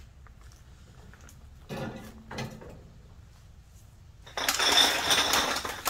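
Black plastic garbage bag full of empty cans and bottles rustling and clinking as it is grabbed and lifted, starting loudly about four seconds in. Before that, two short rattles about two seconds in.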